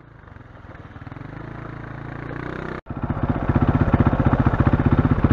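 Quad bike (ATV) engine revving, its pitch rising steadily, then after an abrupt cut running louder with a fast, even pulsing beat as the quad rides along, heard from a camera mounted on the quad.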